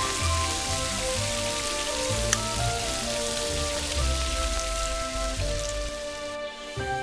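Tomato-and-egg stir fry sizzling in a miniature steel pot as it is spooned out, with one sharp click about two seconds in; the sizzle fades out near the end. Soft background music plays underneath.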